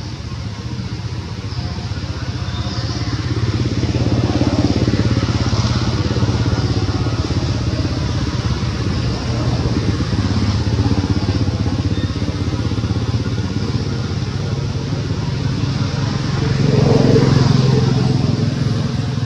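Steady engine noise of passing motor traffic, swelling as vehicles go by, loudest near the end.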